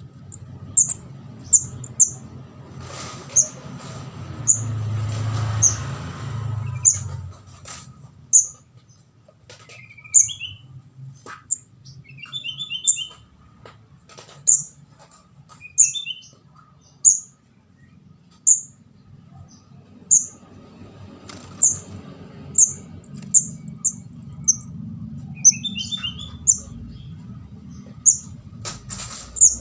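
Juvenile kemade jawa ('ndas abang') calling: short, very high chip notes repeated about once a second, with a few quick, lower trilled phrases between them. This is a lure call for attracting birds.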